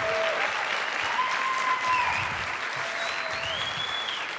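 Audience applauding, easing off slightly toward the end.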